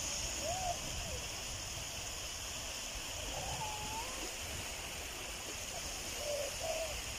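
Beach ambience: a steady hiss with wind rumbling on the microphone, and a few faint, short rising-and-falling calls.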